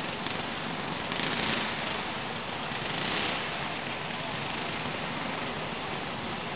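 Kid karts' small engines running on track, heard as a steady noisy drone that swells twice as karts pass, with faint background chatter.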